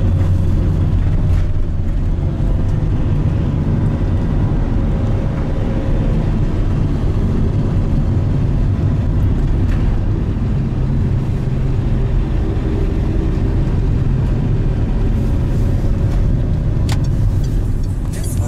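Car driving along an asphalt road, heard from inside the cabin: a steady low rumble of engine and tyre noise.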